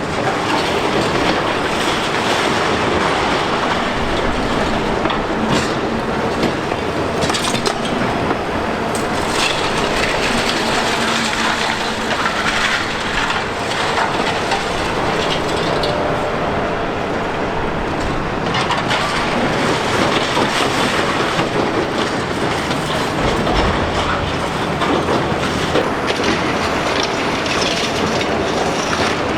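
Liebherr R 960 high-reach demolition excavator at work: a loud, steady din of machinery and breaking concrete, with rubble clattering and scattered knocks throughout.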